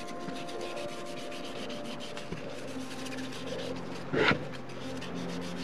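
Cotton-gloved hands rubbing and handling a metal lens barrel during cleaning, with a brief louder scrape about four seconds in.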